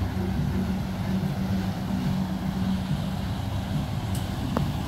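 An engine running steadily with a low hum, with one small click near the end.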